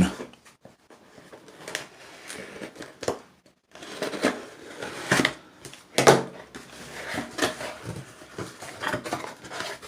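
A new box being opened and the containers inside handled: irregular rustling and scraping with a few sharper knocks.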